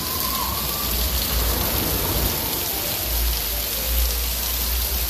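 Artificial waterfall pouring and splashing into a pool, a steady rushing hiss.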